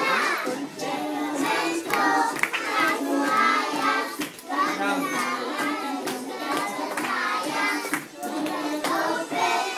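A group of young children singing a song together, accompanied by an acoustic guitar, with scattered short taps or claps.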